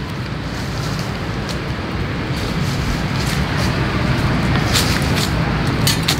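A steady low rumble of outdoor background noise, with a few sharp metal clinks near the end as a bundle of steel swords is picked up and handled.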